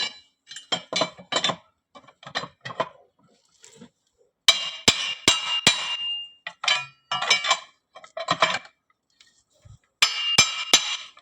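Metal tool clinking against the viscous fan's nut on a Land Rover TD5 engine as the fan is tightened with a home-made tool: irregular sharp ringing clinks in clusters, loudest about halfway through and near the end.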